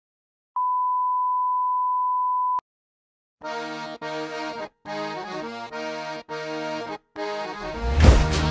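A steady beep of a colour-bar test tone for about two seconds, cut off sharply, then a brief silence. Music follows: held chords in short phrases separated by brief gaps, with drums and a heavy low beat coming in near the end.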